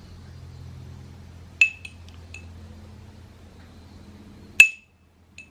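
A metal measuring spoon clinking against a glass spice jar while scooping dried thyme: a few short ringing clinks, two of them sharp and loud, about a second and a half in and near the end.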